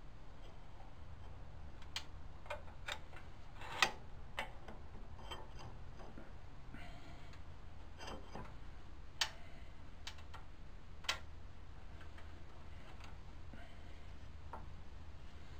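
Light metallic clicks and knocks, about a dozen at irregular intervals with the loudest about four seconds in, as a steel tool rest is handled and set against a wood lathe. A faint, steady low hum runs underneath.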